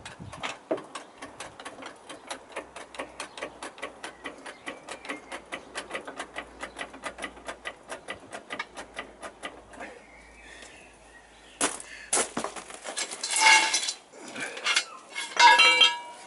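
Hand ratchet clicking rapidly and evenly, about five clicks a second, for the first ten seconds. Then several loud metal clanks and scrapes with a ringing tone as steel bar is handled, the loudest near the end.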